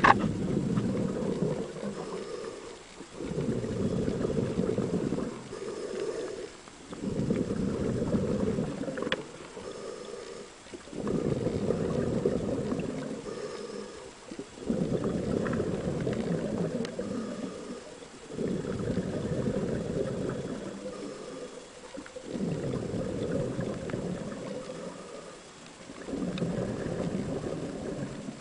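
Scuba diver breathing underwater, heard through the camera housing: a rumbling rush of exhaled bubbles swelling and fading in a steady rhythm, about every three to four seconds, with a short pause between breaths.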